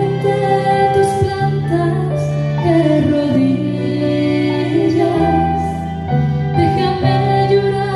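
Live worship song performed by a small ensemble: female voices singing over bowed violin, strummed acoustic guitar and keyboard, in slow held notes.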